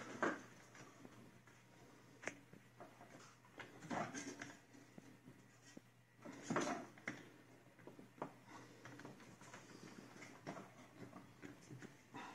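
Faint handling noises from the oven's control knob and thermostat assembly being worked loose by hand: scattered clicks, taps and scrapes of plastic and metal parts, with louder knocks about four and six and a half seconds in.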